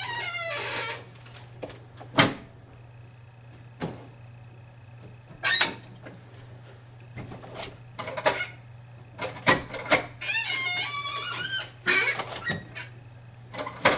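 Carpet power stretcher being worked to stretch carpet: a series of sharp clacks from the stretcher, with squeaking near the start and again from about ten seconds in, over a steady low hum.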